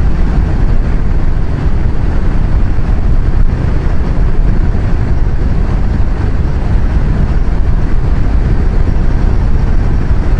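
Kawasaki Versys 1000 motorcycle with its inline-four engine being ridden at a steady cruising speed. A loud, even rumble of wind on the microphone mixes with engine and road noise, with no change in speed.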